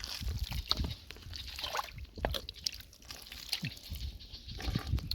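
Hands digging through wet mud and shallow water for clams: irregular squelching, sloshing and small splashes.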